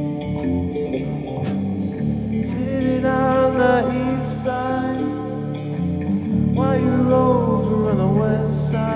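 Live band playing a song: electric guitar, bass guitar and drums, with a male lead vocal coming in about two and a half seconds in.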